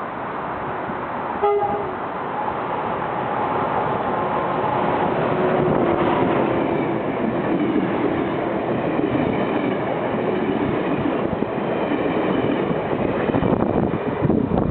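Amtrak passenger train, an AEM7 electric locomotive hauling Amfleet I coaches, passing through at speed: a steady rolling rush of wheels on rails. A short horn toot comes about a second and a half in.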